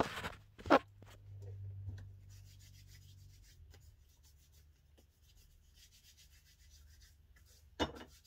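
Handling noise: a loud knock about a second in as the camera is set in place, then soft rubbing and scratching as things are handled at a desk, and another knock near the end.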